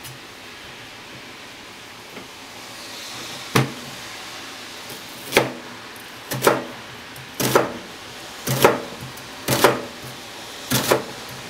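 Kitchen knife slicing through a raw onion and knocking on a plastic cutting board: seven sharp chops, about one a second, starting a few seconds in, some of them doubled.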